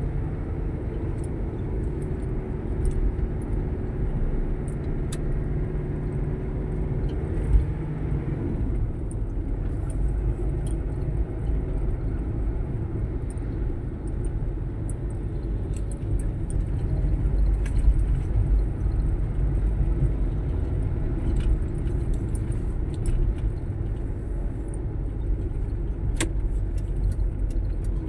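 Motor vehicle traffic: a low, continuous engine and road rumble. A steady engine hum drops away about eight seconds in, and scattered light ticks and rattles run through it.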